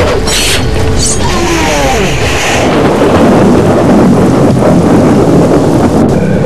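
A loud, continuous rumble, with sharp crashes and a few falling whistles in the first two seconds, swelling louder after about three seconds.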